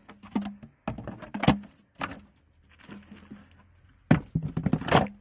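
Wooden beehive boxes and frames knocking and scraping as they are handled: a few single knocks, then a quick cluster of knocks and rattles about four seconds in.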